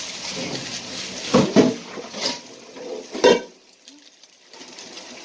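Kitchen utensils and cookware clinking and knocking against a frying pan, about four short strikes in the first three and a half seconds.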